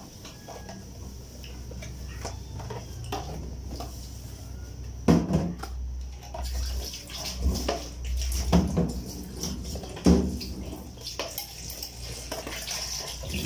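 Kitchen water sounds with scattered clinks of pots and dishes, and three louder knocks about five, eight and a half and ten seconds in.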